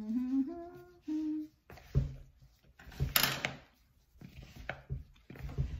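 A voice hums briefly at the start, then flour-coated chicken wings are tossed by hand in a plastic mixing bowl, with a few knocks against the bowl and a short rustle of the flour a little past the middle.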